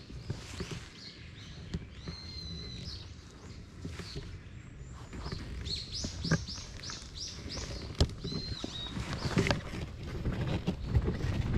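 Wild songbird singing: a whistled phrase, then a quick run of about eight repeated rising-and-falling notes, and one more note. Under it come hikers' footsteps on a trail, growing louder near the end.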